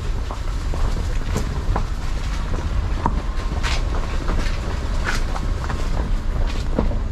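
Footsteps crunching on a dirt-and-gravel path at walking pace, about one to two steps a second, over a steady low rumble.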